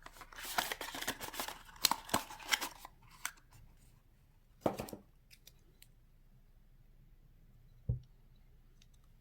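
Close handling noises: a quick flurry of sharp clicks, snips and rustles for about three seconds, then one more rustle and, near the end, a soft thump.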